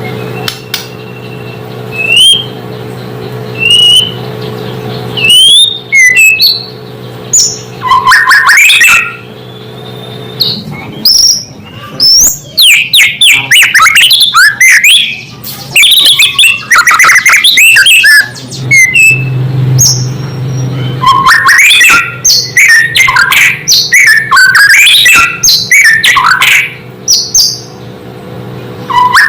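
White-rumped shama (murai batu) singing: a few clear whistled notes at first, then from about 8 seconds in a loud, fast, varied run of chirps, trills and chatters with short pauses. A steady low hum runs underneath.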